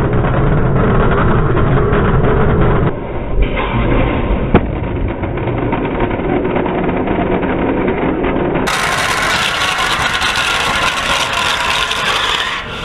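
Steady roar of a pad fire at a kerosene and liquid-oxygen rocket: propellants spewing from a blown-out combustion chamber after a hard start, burning around the launch rail. A single sharp crack about four and a half seconds in, and the sound turns higher and hissier about nine seconds in.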